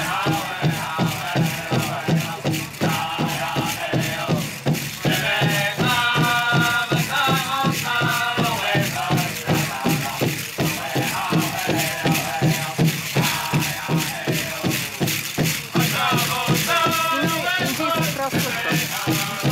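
Powwow drum and singers: a steady, even drumbeat with high-pitched group singing in phrases, joined by the rattling shake of jingle-dress cones.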